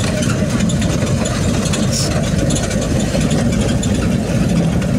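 Steady engine and road noise from a vehicle driving along a road, a continuous low rumble that holds an even level throughout.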